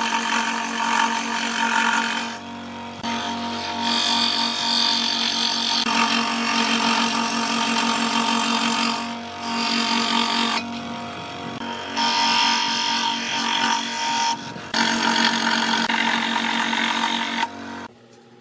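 Electric scroll saw running, its reciprocating blade cutting through a strip of dark hardwood: a steady motor hum with the rasp of the cut rising and falling as the wood is fed, dipping briefly a few times. The sound stops abruptly near the end.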